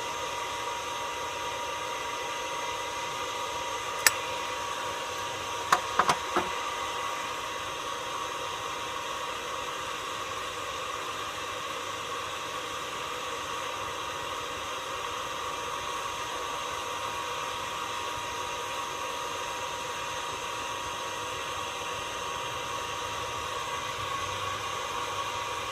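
Steady machine hum with hiss, holding a fixed pitch throughout. There is a sharp click about four seconds in and a quick run of four short knocks around six seconds.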